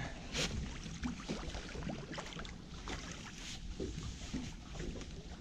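Wet drift net being hauled hand over hand over a boat's side: water splashing and dripping off the mesh, with scattered small knocks and rustles as the net comes aboard.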